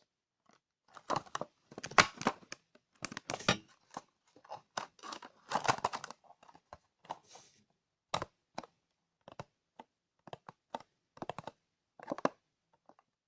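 Close-up ASMR tapping on objects: irregular taps and clicks, some in quick clusters, with short pauses between.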